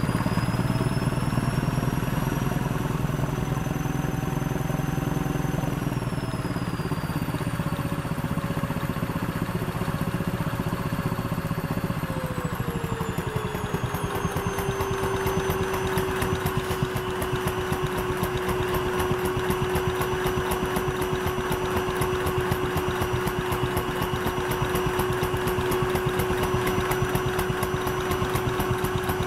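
Wooden toy piston engine driven by a vacuum cleaner's suction, clattering rapidly over the vacuum motor's whine. The whine drops in pitch in two steps, about six and twelve seconds in, then holds steady: the vacuum cutting its suction as it senses a clog, with the modified engine still running.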